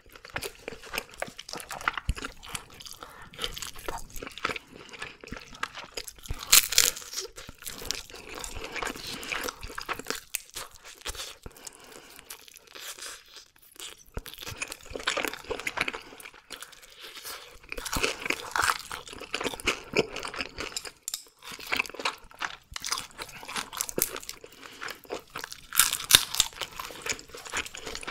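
Close-miked eating sounds: oven-grilled red sea bream being picked apart with wooden chopsticks and a gloved hand, and chewed. There are irregular small clicks and wet smacks throughout, with louder bursts about a quarter of the way in and near the end.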